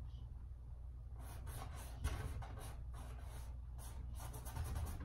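Paintbrush loaded with paint scrubbing and dragging across a canvas in quick scratchy strokes, about four or five a second, starting about a second in, over a steady low room hum.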